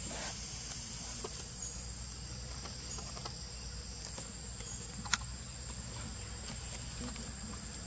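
Steady high-pitched drone of forest insects, with a low hum beneath, a few faint ticks and one sharp click about five seconds in.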